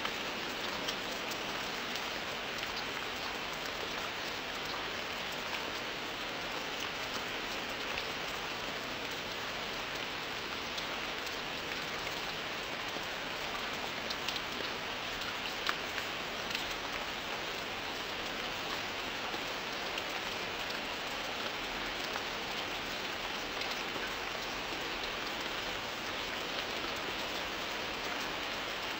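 Steady rain falling: a dense, even hiss of drops, with a few sharper drop hits standing out.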